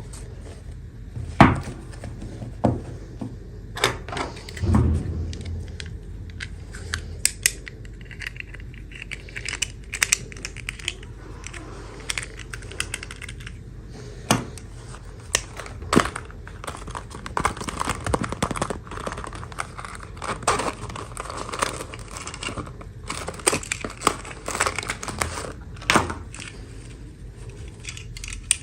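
Hands unboxing toys: plastic packaging crinkling and tearing, with many sharp clicks and taps of small plastic pieces being handled.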